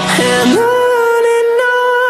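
Background pop music, with one long held note from about half a second in.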